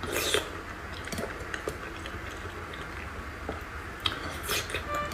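A person eating: chewing with scattered small clicks and wet smacks. There is a louder bite right at the start and another cluster of bites and smacks about four seconds in, over a low steady hum.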